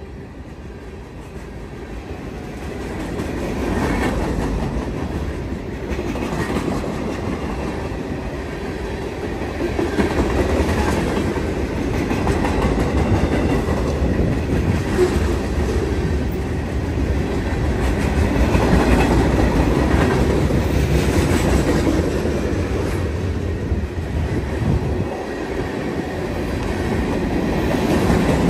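Freight train cars rolling past at close range: a steady rumble of steel wheels on rail with repeated clacks as the wheels cross rail joints. It grows louder over the first few seconds.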